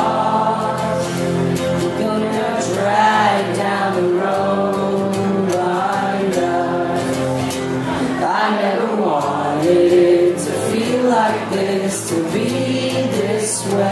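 A man singing a slow song while strumming an acoustic guitar, in a live solo acoustic performance.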